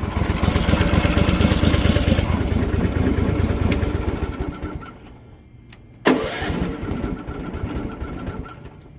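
Small go-kart engine with electric start, fired up and running, dying down around five seconds in, then starting again with a sudden loud burst about six seconds in and running more quietly toward the end.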